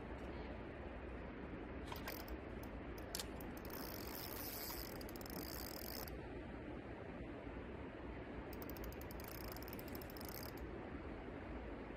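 Spinning reel being cranked to wind in line, giving rapid high-pitched clicking in two spells of about two seconds each, with a few single clicks before them.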